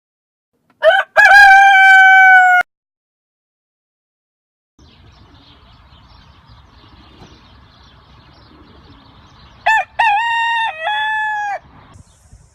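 Rooster crowing twice: a long, held crow about a second in, and a second crow near the end with breaks in pitch. Faint background noise lies between them.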